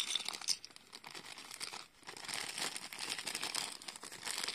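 A thin plastic packaging bag crinkling as it is handled and crumpled in the hands, with a brief lull about two seconds in.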